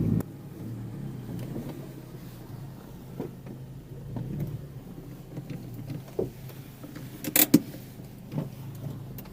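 Car running on the road heard from inside the cabin: a steady low engine and road hum, with scattered light ticks and a sharp double click about seven and a half seconds in.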